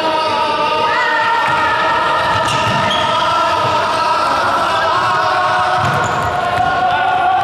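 Long held notes from several voices at once, stepping to new pitches about a second in and again near the middle, over the thuds of players running on a sports hall floor.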